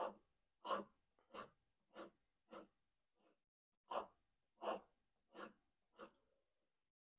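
A carving knife blade drawn along a leather strop charged with green honing compound, polishing the edge. About ten short swishes come at an even pace, roughly three every two seconds.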